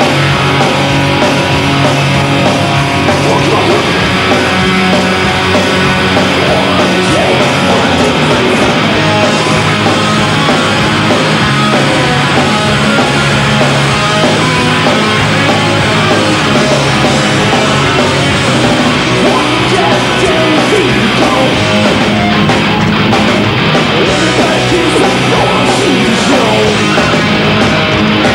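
Swedish hard rock band playing live at full volume, with electric guitars and drums.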